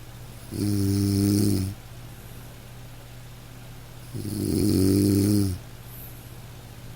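A person snoring: two long, rasping snores about three and a half seconds apart, each lasting a little over a second.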